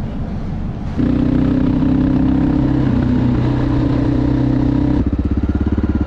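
Honda XR650L's air-cooled single-cylinder four-stroke engine running steadily under way after a quieter first second. About five seconds in it gives way to an even, rapid thumping idle with no tapping from the top end, the fault cured by the replaced rocker arm.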